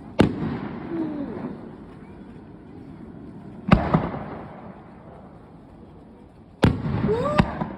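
Aerial fireworks shells bursting: four sharp booms, three of them about three seconds apart and a fourth close after the third near the end, each trailing off in a rumble over about a second.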